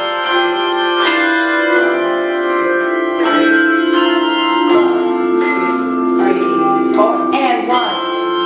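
Handbells ringing a slow melody. A new note is struck about once a second, and each one rings on under the next.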